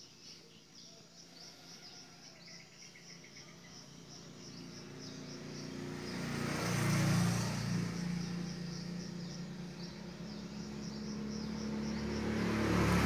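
Insects chirping in a rapid, even, high-pitched series throughout, while a passing vehicle's hum swells and fades about halfway through and another builds near the end.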